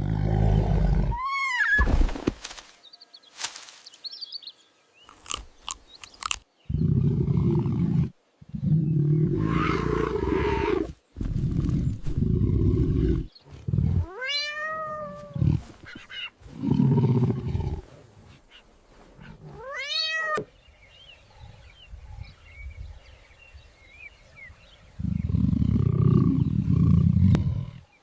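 Animal sound effects: repeated low lion-like roars and growls, with three drawn-out cat meows that rise and fall in pitch, one near the start, one about halfway and one about two-thirds through. In a quieter stretch after the last meow there are faint chirps, then a final long growl near the end.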